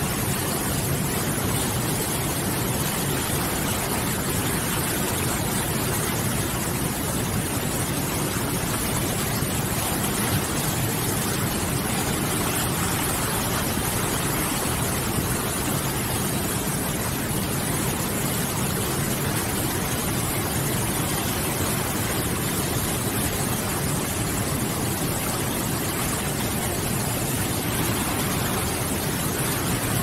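Fast mountain river rushing through whitewater rapids over boulders: a loud, steady rush of water.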